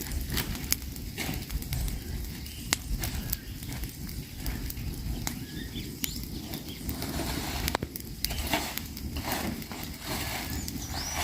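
Fire crackling, with sharp pops and snaps at irregular moments over a steady low rustle of flames.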